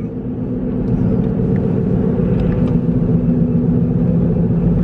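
Steady low rumble of a moving car, its engine and road noise heard from inside the cabin.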